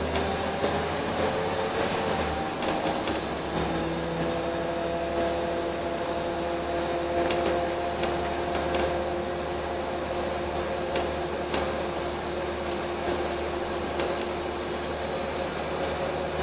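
Cabin noise inside a Wright Eclipse single-deck bus on the move: a steady engine and drivetrain hum with a few held whining tones over a low rumble, and several short interior rattles or clicks.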